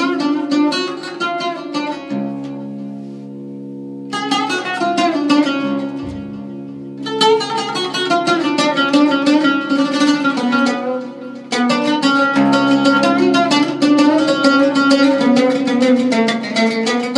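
Instrumental music of rapidly plucked strings. About two seconds in, the plucking stops briefly while a held low chord sounds alone, then the quick plucked runs return and carry on.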